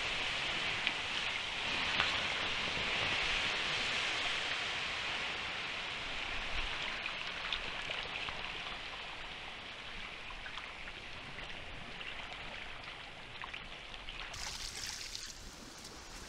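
Water poured from a bucket onto the hot coals and burnt clay of a campfire, splashing and hissing into steam as the fire is doused. The hiss dies away gradually.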